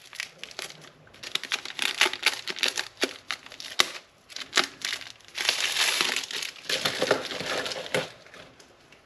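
Plastic packaging crinkling and rustling as it is handled, in uneven spells of crackles, with a longer run of steady rustling about halfway through.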